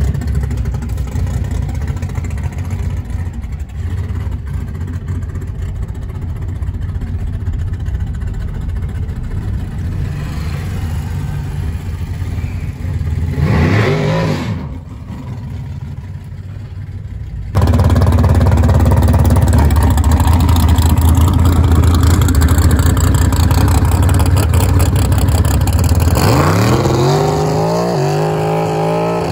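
Loud drag race car engines running, with revving. About halfway through, an engine's pitch rises and falls, and near the end an engine's pitch climbs steadily as the car accelerates.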